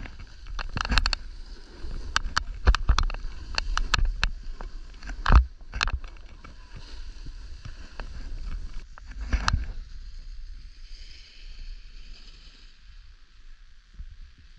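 Snowboard sliding on snow: a scraping rumble with irregular click-clack knocks for the first ten seconds or so, after which the clicks stop and a steady hiss of the board gliding remains.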